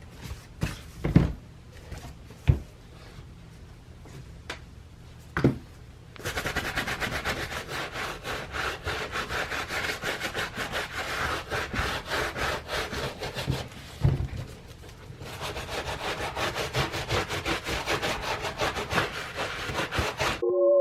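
Stiff brush scrubbing a dirty sneaker in rapid back-and-forth strokes, cleaning off caked dirt and plaster, after a few knocks in the first seconds.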